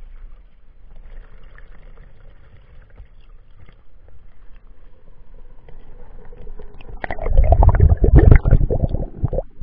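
Water flooding into a model ship's staircase hall: a low, steady rush of water, then about seven seconds in a loud, muffled gurgling rumble as the water closes over the camera and it goes under.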